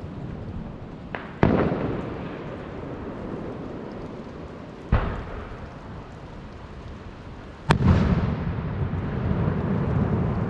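Aerial firework shells bursting: three sharp booms a few seconds apart, each trailing off in a rumbling echo, the last one the loudest and followed by a long crackling rumble.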